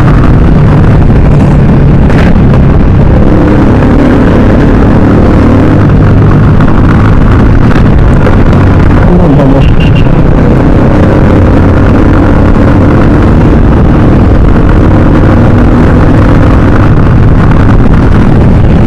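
Motorcycle engines running at cruising speed in traffic, a steady loud drone whose pitch rises and falls as the throttle changes.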